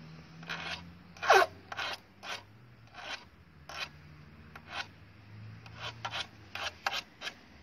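Flat hand file rasping in short, uneven strokes, roughly two a second, across the flattened tip of a steel nail: filing the tip down to the same width as the nail to make a homemade drill bit.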